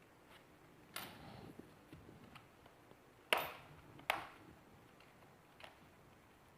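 Sharp plastic clicks as the snap-fit clips of a laptop's plastic bottom case pop loose while it is pried open: one about a second in, two louder ones close together past the middle, and a fainter one near the end, with small ticks in between.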